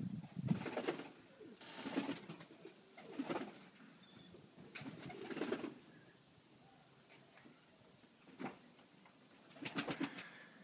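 Domestic pigeons cooing in repeated bouts with short pauses between, the calls quieter for a couple of seconds past the middle.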